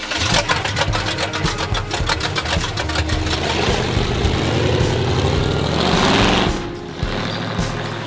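Engine of a hot-rodded Volkswagen Beetle gasser revving hard as the car accelerates away, the pitch climbing to a peak about six seconds in, then falling off.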